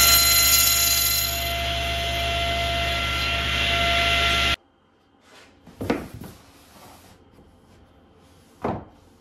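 Table saw running steadily with a whine, cutting an interlocking foam floor mat to width; the sound cuts off abruptly about four and a half seconds in. Then come a few brief rubs and knocks as the foam mat is handled and set down.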